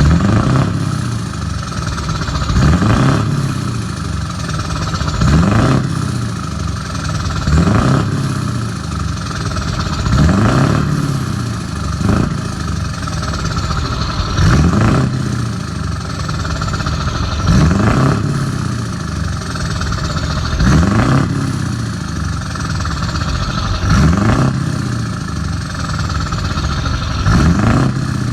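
Truck diesel engines with open exhaust pipes, revved again and again, roughly every three seconds, each rev rising in pitch before dropping back.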